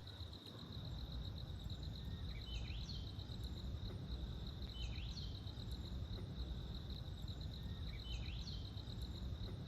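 Outdoor nature ambience: a steady, pulsing high-pitched insect trill, with a bird giving a short rising call three times, a few seconds apart, over a low rumble of wind noise.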